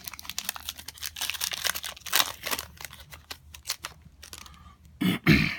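A trading-card pack wrapper being torn open and crinkled, a dense run of crackles and small rips that fades out after about four seconds. A voice starts speaking near the end.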